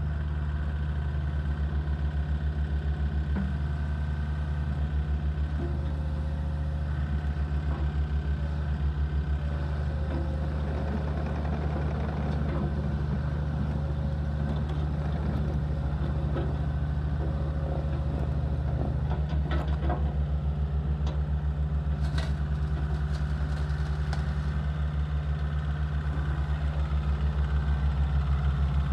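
Terex TC75 compact excavator's diesel engine running steadily with an even low throb; its note shifts slightly about two-thirds of the way through, with a few faint clicks.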